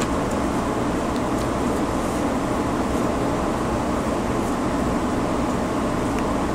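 Steady low rushing background noise, like a room air conditioner or fan, with a few faint soft rustles of paper being handled.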